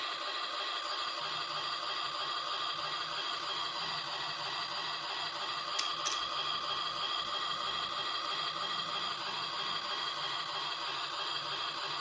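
A toy kitchen set's electronic sound effect: a steady hissing sound from its small speaker, with two faint clicks about six seconds in.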